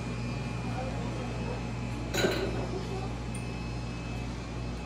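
A single sharp clink with a short ring about two seconds in, over a steady low hum.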